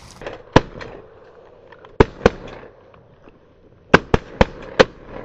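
A volley of about seven shotgun shots, loud and close, in uneven groups: one shot, then two about a third of a second apart, then a rapid string of four near the end.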